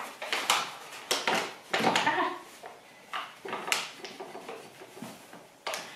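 Paper flour packet rustling and being shaken and tapped to empty the last of the flour into a drinking glass, with a string of short knocks and crinkles.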